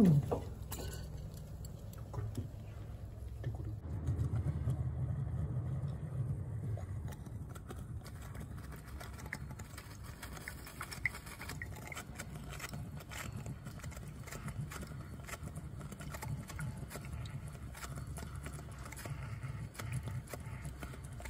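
Faint, irregular crackle of foaming carburettor cleaner bubbling up and bursting as it comes out through a 1977 Toyota Crown's carburettor, over a steady low rumble. A short, sharp sound falling in pitch comes right at the start.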